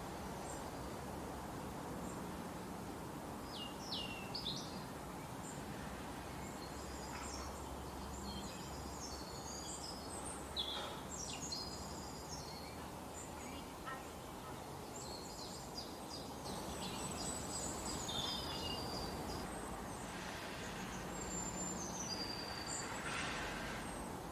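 Forest ambience: small songbirds chirping and calling on and off over a steady rushing background noise.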